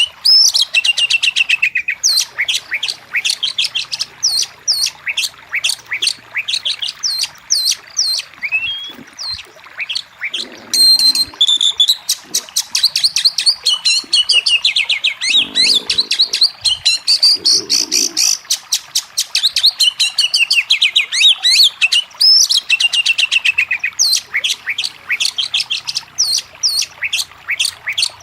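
Oriental magpie-robin (kacer) singing loudly and without pause: fast runs of high, downward-sweeping whistled notes, with a few harsher, buzzier phrases near the middle.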